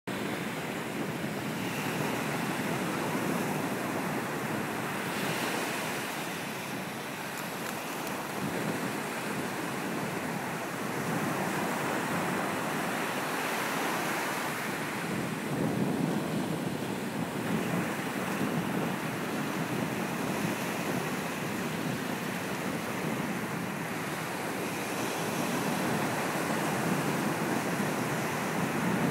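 Ocean surf breaking on a sand beach: a continuous wash of noise that swells and eases as successive waves come in and break.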